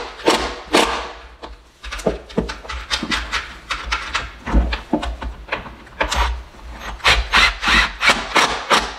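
Hart cordless drill driving pocket screws into a pine countertop board, in quick short pulses several times a second.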